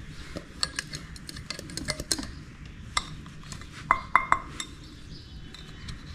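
Stainless-steel mixer-grinder jar with a white plastic base being handled and turned over: scattered clicks, taps and light clinks, with three quick ringing metallic clinks about four seconds in.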